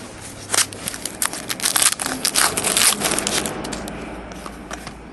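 Wrapper of a 2011 Donruss Elite football card pack being torn open and crinkled by hand: a quick run of sharp crackles for about three seconds, thinning to a few light clicks near the end as the cards are handled.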